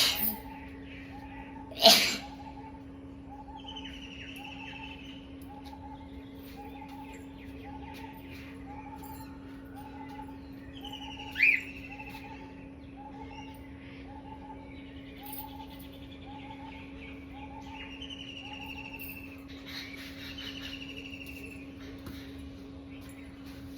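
A person sneezing in sharp bursts: one at the start, the loudest about two seconds in, and another about eleven seconds in. Behind them birds chirp, a short chirp repeats about one and a half times a second, and a steady low hum runs throughout.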